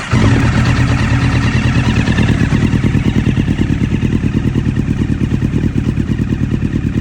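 2009 Honda CBR1000RR's inline-four engine firing up right at the start, then idling steadily and loudly through a Leo Vince GP Pro aftermarket exhaust with an even, rapid throb.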